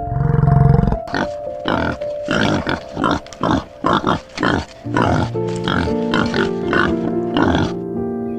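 Wild boar grunting in a quick series of short grunts, about two a second, over soft piano music. The first second holds the end of a deep, low bellow from a European bison.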